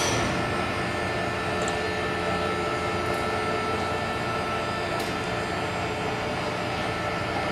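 Steady mechanical hum with several held tones over a noisy rush, from a cruise ship's machinery and ventilation. A single light click about five seconds in.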